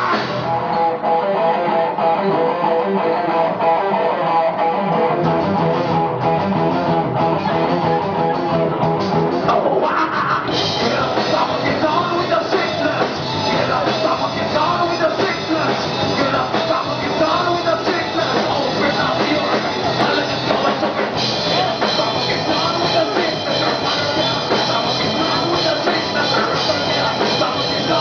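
Rock band playing, guitar to the fore. About ten seconds in the sound fills out with the full band, and it grows brighter again a little past the middle.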